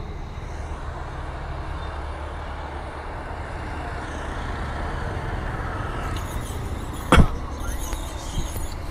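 Steady low rumble of motor vehicles running, with a single sharp knock about seven seconds in.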